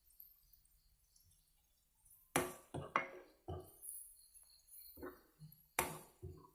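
Stirring utensil knocking and clinking against the pan while sautéing onions and ginger-garlic paste: a string of about eight sharp, irregular strikes with a short ring, starting about two seconds in.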